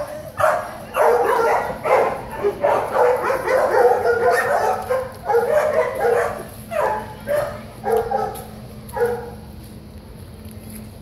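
Dog barking over and over, the barks coming thick and close together for the first several seconds, then more spaced out and fading in the last few seconds.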